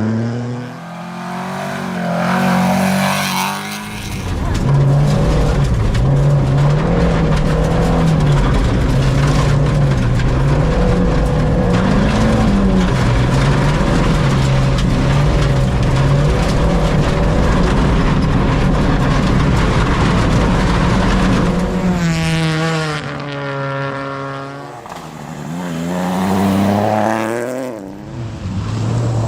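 Rally car engine run hard, its pitch wavering up and down for a long stretch, then dropping away and climbing again near the end as the revs fall and the car accelerates once more.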